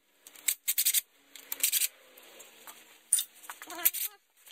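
Hand ratchet clicking in several short bursts as transmission oil pan bolts are backed out one after another.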